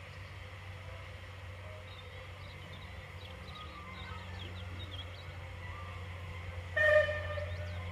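Steam locomotive approaching slowly with a steady low rumble, with small birds chirping. About seven seconds in, a short loud toot sounds and fades within half a second.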